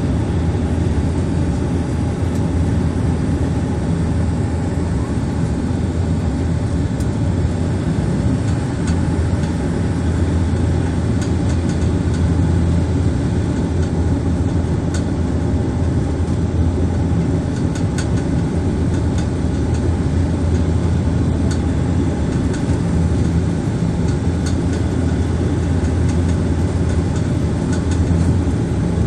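Steady low drone of a Bombardier Dash 8 Q400's turboprop engines and propellers heard inside the passenger cabin, with a few faint ticks scattered through it.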